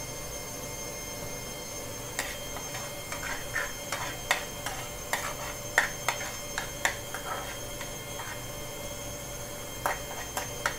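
Minced garlic frying in butter in a pan, crackling with irregular sharp pops from about two seconds in, over a steady background hum.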